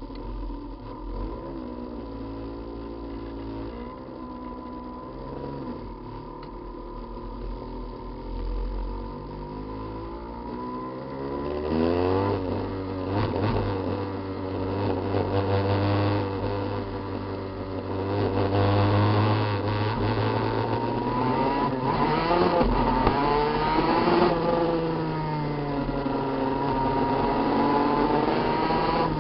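Honda NSR250's two-stroke V-twin engine under way. It is quieter at first, then about a third of the way in it gets louder and revs up and drops back several times, with the pitch climbing and falling.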